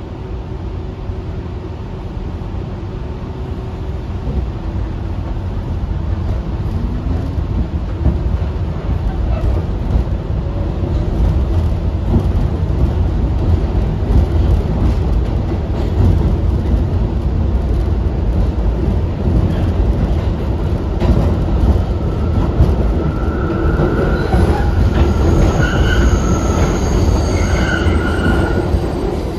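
R62A subway train running through the tunnel, heard from inside the car: a rumble and rattle of the wheels that grows louder over the first ten seconds or so. In the last few seconds the wheels give several short high-pitched squeals.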